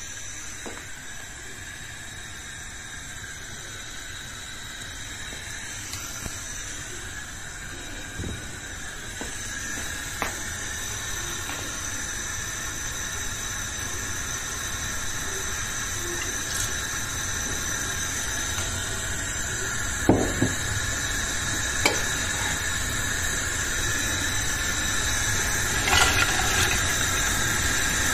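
A steady high whine and hiss from kitchen appliances, slowly growing louder, with a few short knocks of cookware against the pan.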